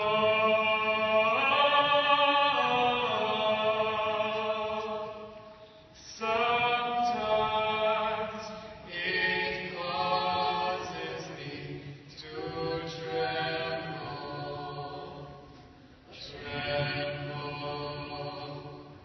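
A solo voice singing slow phrases of long held notes, with short pauses for breath between them.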